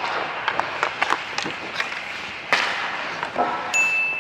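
Ice hockey play heard close up: skate blades scraping the ice, with sharp stick and puck clacks throughout and one loud hit about two and a half seconds in. Near the end a steady high tone starts.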